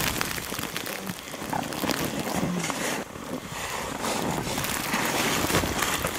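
Close-up rustling and crackling of nylon shell jackets brushing against the microphone and handling of the camera, with a couple of faint voice sounds.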